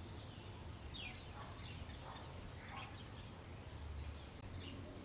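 Small birds chirping faintly in a scatter of short calls, several of them sliding downward, over a low steady background rumble.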